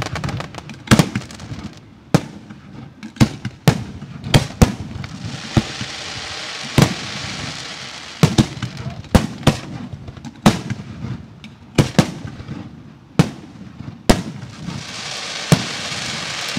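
Professional 1.3G display fireworks going off: a steady, irregular run of sharp shell bursts, about one or two a second. Two stretches of dense crackling, about a third of the way in and again near the end, sit under the bursts.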